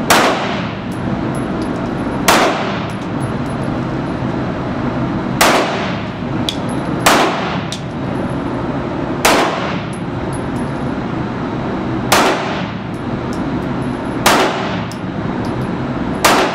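Handgun shots fired one at a time, eight in all, every two to three seconds, each with a short echo off the walls of an indoor range, over a steady background hum.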